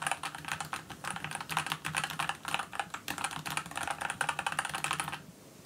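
Fast typing on a Dygma Defy split mechanical keyboard fitted with Gateron Yellow linear switches: a dense, continuous run of key clacks that stops near the end.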